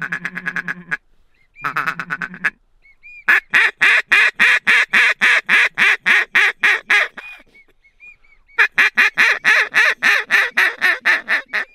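Duck call blown by a hunter: a few short bursts of quacking, then two long, fast runs of loud quacks at about five a second, with short faint whistled notes in the pauses between runs.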